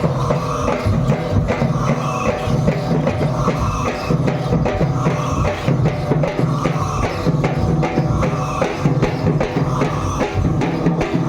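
Loud drum-driven dance music for a Holi dance, with a steady beat and a short pattern that repeats about every second.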